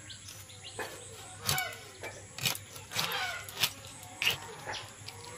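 A large river fish's head being cut on a boti (a fixed upright blade): a few sharp cracks and crunches as the blade goes through bone, with hens clucking in the background.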